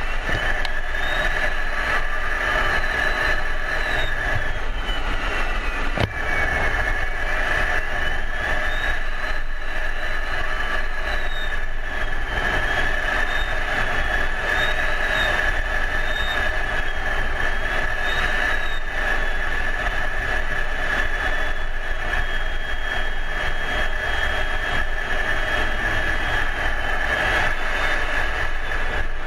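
Steady noise inside an F-16 fighter's cockpit in flight, from the jet engine and the air rushing over the canopy, with a constant high tone and a fainter high whine that drifts up and down in pitch. A single brief click about six seconds in.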